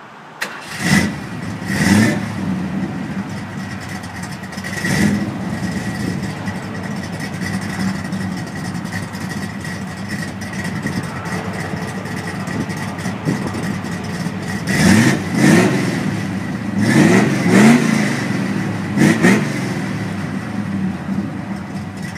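Classic Ford car's engine idling, revved in short blips: twice near the start, once at about five seconds, and four or five times between about fifteen and twenty seconds.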